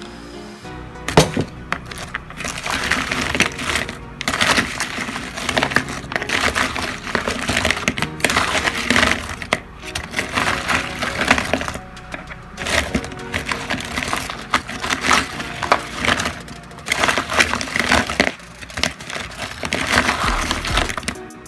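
Crispy fried cream dory pieces crackling and scraping in a plastic bowl as a spatula tosses them in garlic butter sauce, in bursts every second or two, over background music.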